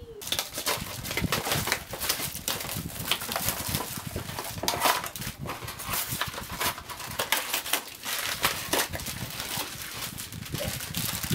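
Small cardboard blind boxes being torn open by hand and the foil bags inside them crinkling and rustling, a dense, uneven run of crackles and rustles.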